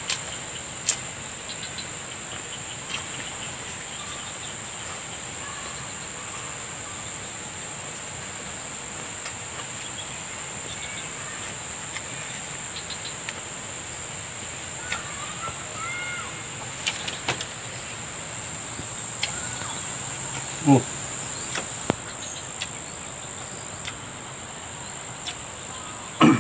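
Steady high-pitched insect chorus buzzing throughout, with scattered small clicks and smacks of hand-eating and a brief louder low sound about twenty seconds in.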